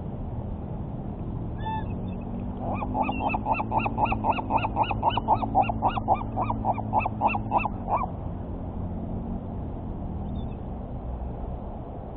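A goose honking in a rapid, even series of about twenty calls, about four a second, lasting some five seconds before stopping.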